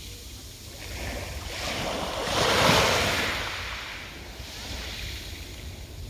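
Small sea waves breaking on a pebble beach and washing up over the stones. One wave swells to a peak about halfway through and fades away, followed by a smaller wash.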